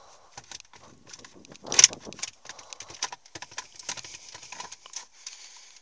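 Plastic centre-console trim panel of a first-generation Nissan Leaf being pulled out of the dash by hand: a string of clicks and rattles as its latches pop free, with one loud snap about two seconds in.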